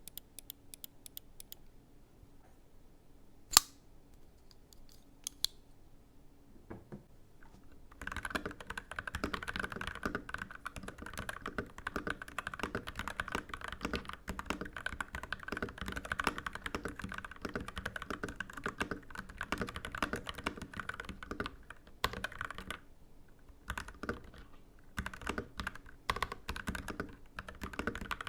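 Typing on a custom mechanical keyboard fitted with Gateron Yellow Pro linear switches. A few scattered keystrokes and one loud click come first, then fast continuous typing starts about eight seconds in, with a brief pause a little past twenty seconds.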